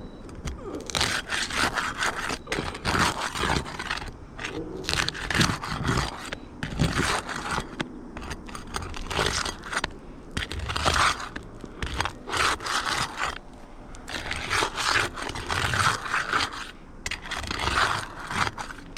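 Repeated rough scraping and prying against asphalt roof shingles as a creased shingle is worked loose to be taken out, in irregular strokes with short pauses.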